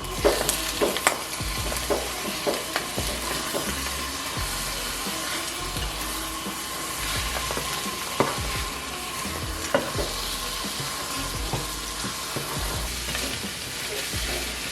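Food sizzling as it fries in a pan, with a utensil stirring and knocking against the pan now and then.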